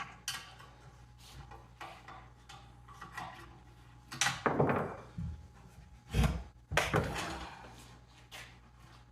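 Metal clinks, ratchets and knocks of a half-inch wrench working square nuts off carriage bolts on an old engine's base plate. Louder clunks come about four, six and seven seconds in.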